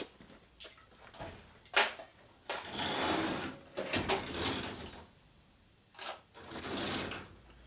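A metal tool-cabinet drawer being opened and rummaged through. A knock about two seconds in, then a couple of seconds of rattling clatter with a brief squeak, and another short clatter with a sharp click near the end.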